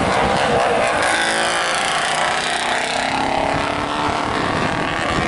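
Historic racing motorcycles riding through a bend: one passes close with its engine running hard, and the next bike approaches behind it.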